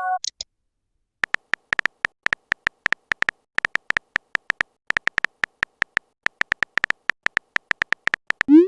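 A rapid, uneven string of short, high electronic beeps, like a text-scroll or typing sound effect, starting about a second in. A chord dies away at the very start, and a quick rising blip comes near the end.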